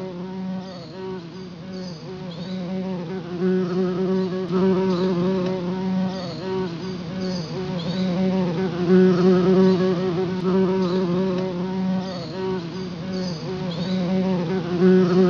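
A swarm of honey bees buzzing: a continuous drone whose pitch wavers, with several buzzes layered together. It grows louder about halfway through and again near the end.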